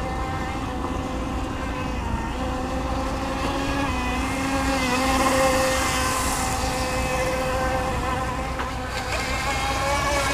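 Radio-controlled speedboat motors running at speed on the water: a steady buzzing drone that shifts a little in pitch about halfway through.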